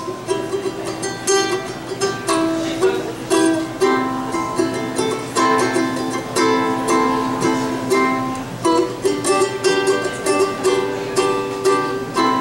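Ukulele strumming chords in a steady rhythm: an instrumental break in the song.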